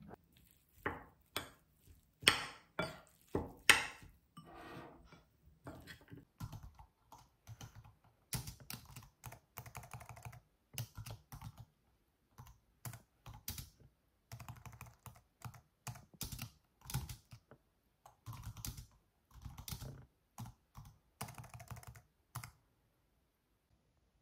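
Typing on a computer keyboard: a long run of irregular keystrokes, with a few louder clacks a couple of seconds in, stopping near the end.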